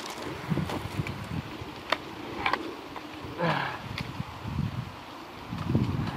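Air rifle being handled and loaded: a few light clicks and knocks, with a short rasping sound about three and a half seconds in.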